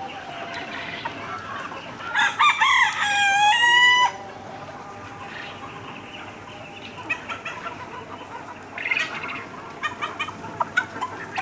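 Free-range chickens clucking. A rooster crows once about two seconds in, a loud call of about two seconds ending on a held note.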